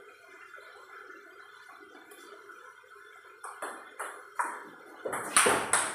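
Table tennis rally: a celluloid ping-pong ball clicking off the paddles and bouncing on the table, a quick series of sharp taps starting about three and a half seconds in, loudest near the end.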